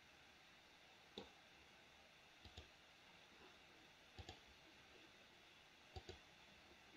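Faint computer mouse clicks over near-silent room tone: one click about a second in, then three quick pairs of clicks spaced about one and a half to two seconds apart.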